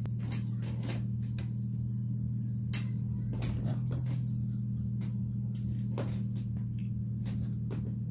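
Small brushed DC motor, coupled to a stepper-motor generator, running with a steady hum. Scattered clicks and knocks of a light bulb and wires being handled sound over it.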